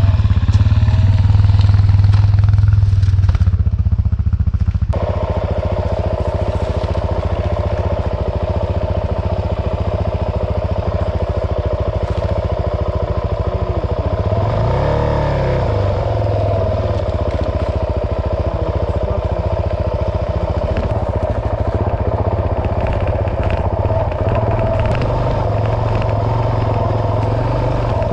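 Dual-sport motorcycle engine running steadily while riding off-road. Its pitch dips and rises briefly about halfway through.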